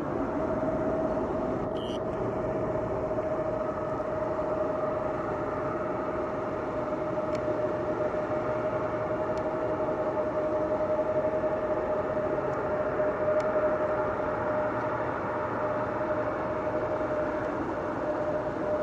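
Jet airliner engines running: a steady rushing noise with a steady mid-pitched whine over it.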